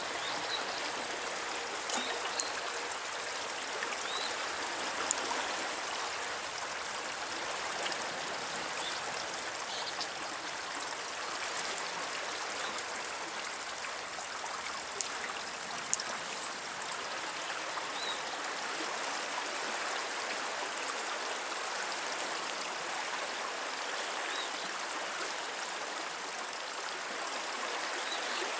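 Fast, swollen river current rushing steadily past the bank, with a few brief sharp ticks now and then.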